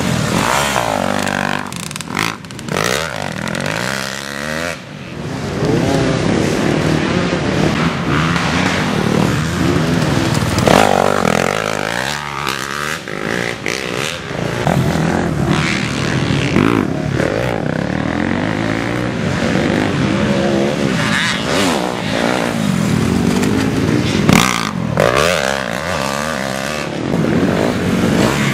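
Dirt bike engines revving hard as racers pass, the pitch rising and falling again and again as the riders open the throttle and shift.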